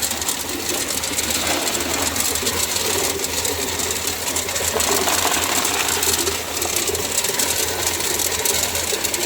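5-ton tube ice machine with a Refcomp compressor running: a steady low hum under a fast, even rattle.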